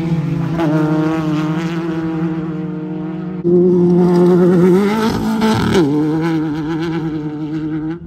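Off-road race cars' engines revving hard as they go by, the pitch climbing and dropping with the throttle. A second, louder engine comes in suddenly about three and a half seconds in, its note swinging sharply up and down shortly after.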